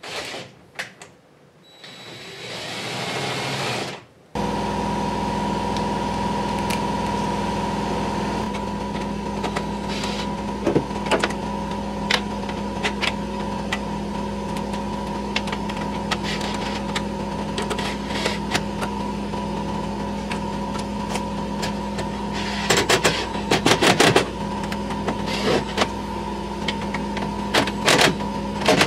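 A steady machine hum that starts abruptly about four seconds in. Over it come scattered clicks and knocks of a hand tool and metal parts as the tail-light mounting nuts are tightened from inside the trunk, in small clusters near the middle and toward the end.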